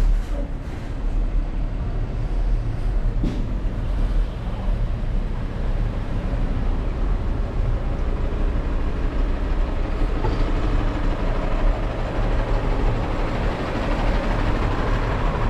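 Steady low engine rumble of slow street traffic, chiefly a large delivery box truck's diesel engine running alongside.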